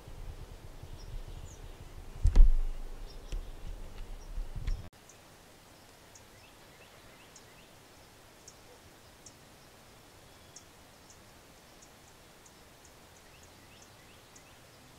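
Low rumbling and knocks of a camera being handled, with one loud bump about two and a half seconds in. It cuts off suddenly about five seconds in, leaving a quiet outdoor background with scattered faint, short high chirps and ticks.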